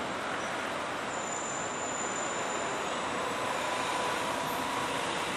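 Steady street traffic noise, an even rush of passing vehicles with a faint whine rising slightly about halfway through.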